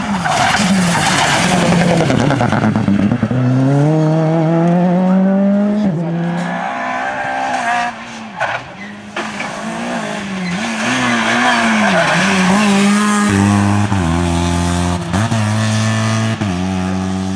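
Rally cars at full throttle, one after another. Engine notes climb in pitch through the gears, and tyres squeal as the cars slide through a bend.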